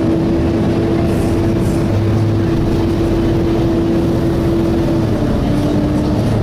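Volvo B7TL double-decker bus's engine cooling fan wailing with a steady, fairly high drone over the engine and road rumble as the bus drives, heard inside the bus; the pitch dips slightly about five seconds in. The fan runs like this whether or not the engine is hot, a fault the uploader says is going around the fleet.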